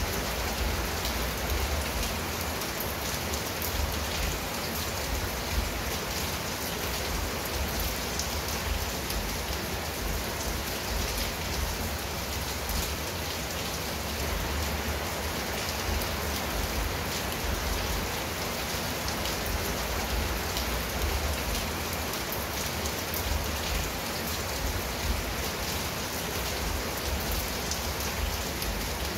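Steady rain falling on a clay-tiled roof and garden leaves, a constant hiss sprinkled with the ticks of individual drops.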